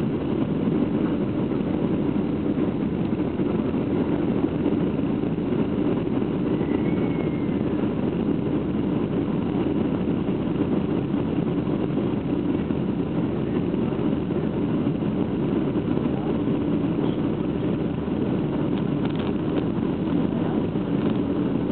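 Steady low rumble of a jet airliner's engines and rushing air, heard inside the passenger cabin.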